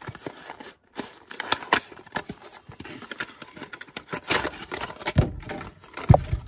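Cardboard packaging being handled and opened by hand: a sleeve sliding off a small box and its folded inner tray pulled open, giving irregular scraping, rustling and small clicks, with crinkling clear plastic. Two louder thumps come near the end.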